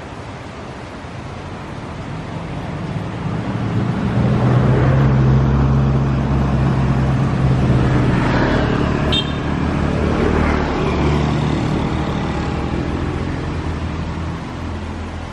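A motor vehicle passing close by on the road: its engine grows louder over a few seconds, stays loud for several seconds, then fades away.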